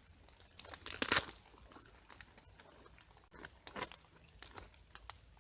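Foil Mountain House meal pouch crinkling as it is handled, in scattered crackles, the loudest about a second in and another near four seconds.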